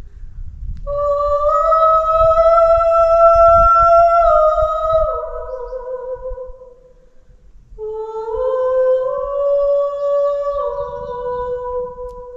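A woman singing a cappella in a rock cave, the cave's acoustics carrying her voice. She sings two phrases of long held notes, each stepping down in pitch, with a short pause between them about seven seconds in.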